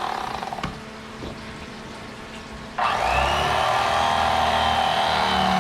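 Electric fillet knife motor running, cutting out about half a second in, then switched back on a little past halfway, its whine rising briefly as it spins up and then running steadily.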